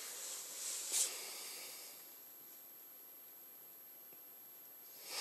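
Faint steady hiss, with a brief soft rush of noise about a second in.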